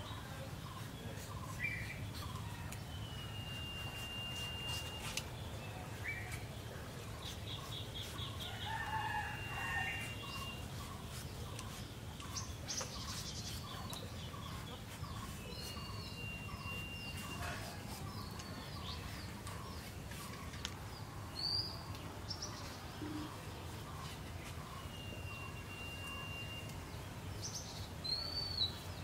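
Chickens clucking and birds calling. A soft call repeats a bit more than once a second for much of the time, with four long, steady whistled notes and a few short chirps. Faint clicks of a boti blade peeling and slicing raw green papaya come through now and then.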